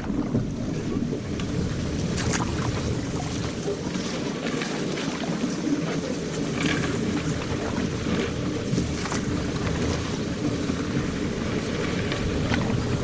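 Wind on the microphone and water sloshing around a canoe, with a few sharper splashes or knocks scattered through it.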